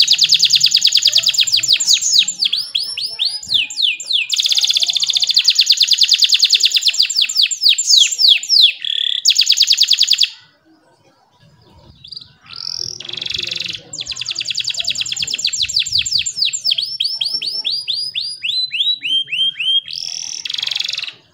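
Domestic canary singing: long, very fast rolling trills and runs of quick falling notes, with a break of about two seconds near the middle.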